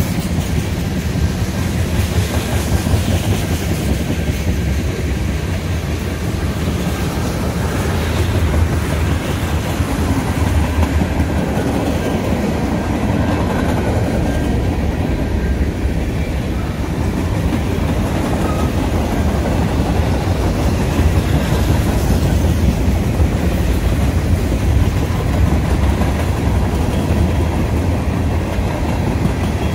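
Freight cars of a passing train rolling by: a steady rumble of steel wheels on the rails with a clickety-clack over the rail joints.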